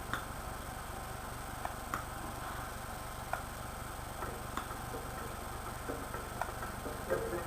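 A few sparse, irregular soft clicks over a steady low electrical hum; music starts just before the end.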